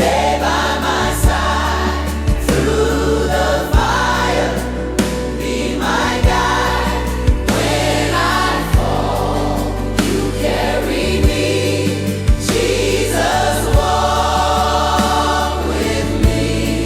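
AI-generated gospel worship song: choir and lead vocals singing over sustained bass and keys, with a steady slow drum beat.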